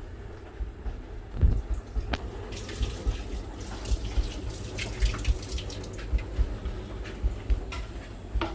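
Kitchen tap running into a sink with splashing for a few seconds, after a thump and a click of handling early on. Low bumps of handling run underneath.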